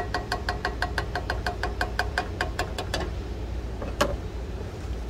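Wooden spoon stirring paraffin wax in a metal saucepan, tapping against the pan about six times a second with a faint ringing to each tap, over a steady low rumble. The stirring stops about three seconds in, and a single sharp clack follows about a second later.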